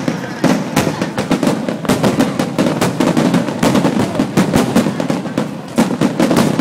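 Fireworks display: aerial shells bursting in quick, irregular succession, a steady run of loud bangs and crackles over a low rumble.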